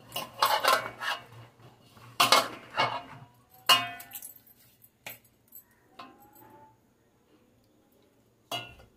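Bangles clinking and a hand rubbing and knocking in a metal bowl as ghee is rubbed into flour for dough. The sound comes in short bursts about every second, goes quiet for a couple of seconds near the end, then there is one last clink.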